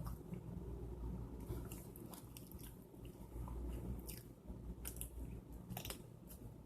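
A person chewing and biting food close to the microphone, with scattered small crunches and clicks over a low steady hum.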